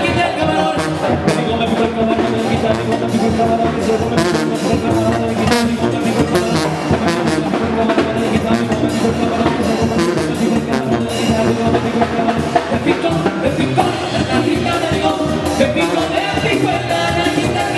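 Mexican banda music played live: brass and a tuba over a steady drum beat, with men singing.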